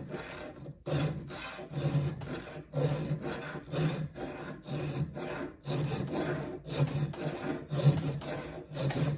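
A file rasping back and forth on a chainsaw chain's cutter tooth, steel on steel, in steady even strokes a little under two a second.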